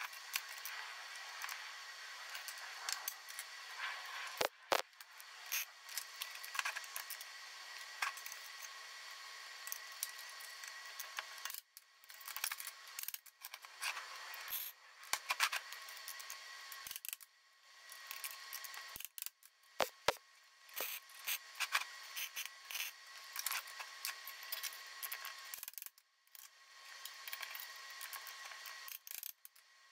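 Steel clamps clicking and clanking against a rolled steel ring and plate as they are set and tightened, with scattered sharp metal knocks over a steady background hiss.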